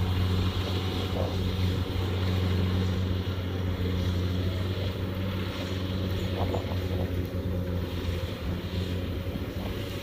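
Kubota DC70 combine harvester's diesel engine running steadily as the machine harvests, a constant low hum that fades slightly as it moves away.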